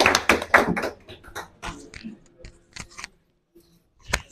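Applause from a small group of people clapping by hand, dense for about the first second, then thinning to a few scattered claps that stop about three seconds in. A single sharp knock near the end.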